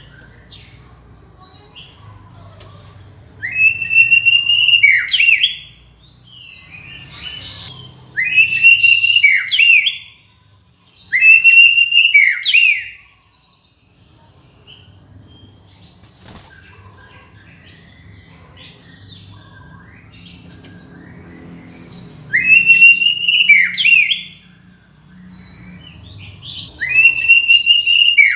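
White-rumped shama (murai batu) singing: five loud phrases of about two seconds each, each a clear whistle followed by quick down-sweeping notes, with quieter twittering in the gaps.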